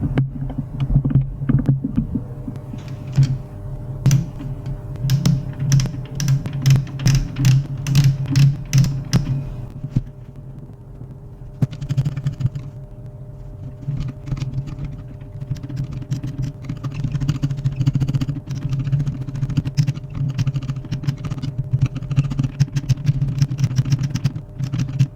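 HP LaserJet 401 laser printer running: a steady motor hum with rapid, irregular clicking and rattling over it, busiest in two stretches, before the sound cuts off abruptly at the end.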